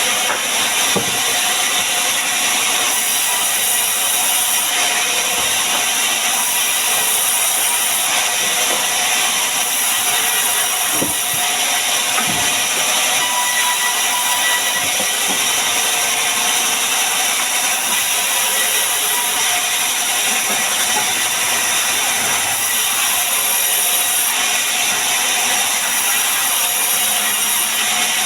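A power tool running steadily while working wood, a continuous loud machine noise with a few faint knocks.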